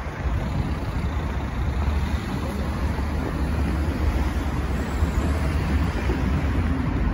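Steady city street traffic noise with a constant low rumble.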